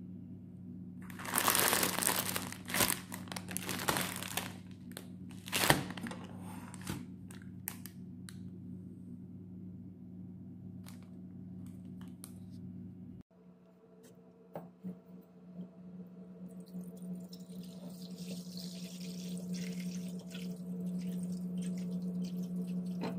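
Plastic instant-noodle packets crinkling as they are handled, in a few bursts over the first several seconds. After a cut, tap water runs into a frying pan, the splashing growing louder over the last several seconds. A steady low hum sits underneath throughout.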